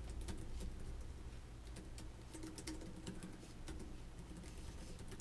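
Light, irregular clicks and taps on a new HP laptop's keys and trackpad, in small clusters, over a low steady hum.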